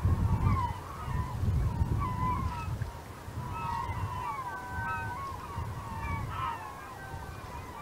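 A large flock of gulls calling: many short, overlapping cries that slide up and down in pitch, over a low rumble.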